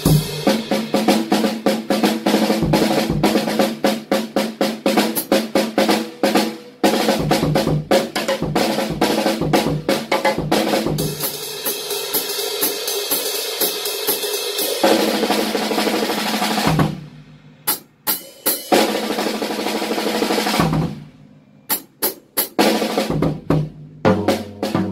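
Jazz drum solo on a drum kit played with sticks: busy snare, bass drum and cymbal figures. About eleven seconds in, the playing becomes one unbroken stretch for about four seconds. Near 17 and 21 seconds it drops to brief pauses with a few scattered strokes.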